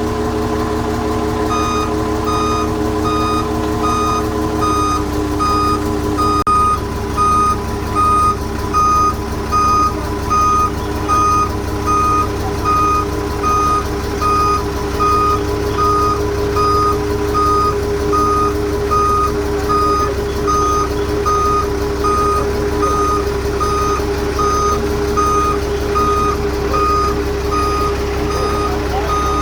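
A vehicle's reversing alarm beeping steadily about once a second, starting about a second and a half in, over a steadily running engine.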